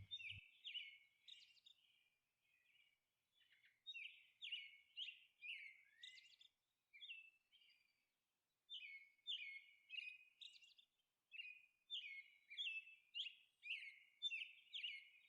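Faint bird chirping: short, high, falling chirps repeated in quick runs, with a pause of a couple of seconds between runs.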